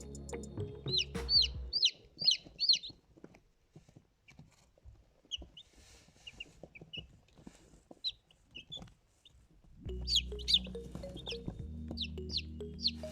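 Young chicks peeping: short, high chirps in a quick run over the first few seconds, fainter scattered peeps in the middle, and another busy run near the end.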